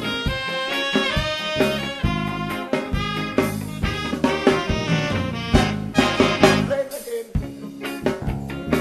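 Calypso band playing an instrumental break between sung verses, melody instruments over a steady beat.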